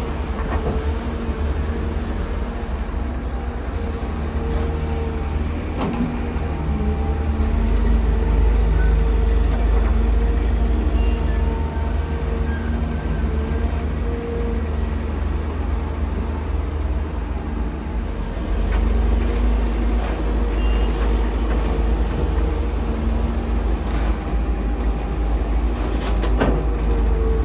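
Kobelco SK250 excavator's diesel engine working under hydraulic load as the machine swings and digs, a steady heavy rumble that grows louder about seven seconds in and again near nineteen seconds. A couple of sharp knocks are heard, about six seconds in and near the end.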